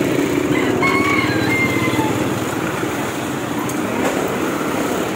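Street traffic, with a small engine running close by in a steady, fast putter.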